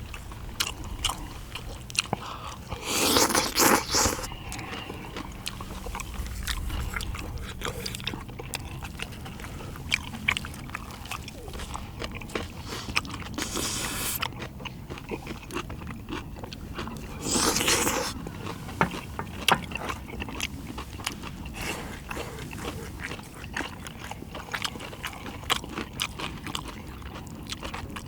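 Close-up eating sounds of spicy stir-fried small octopus with noodles: chewing and biting with many small clicks, and utensils scraping. Two louder noisy bursts, each about a second long, come around 3 and 17 seconds in.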